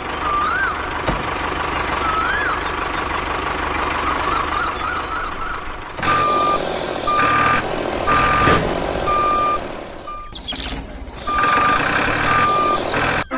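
Electronic beeping from a toy vehicle's sound unit: a warbling tone with short chirps for the first six seconds, then a reversing-style beep repeating about once a second, over steady background noise.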